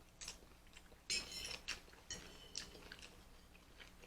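A person chewing food close to the microphone, with short wet smacking and crackling mouth sounds: a cluster about a second in and a few single smacks after.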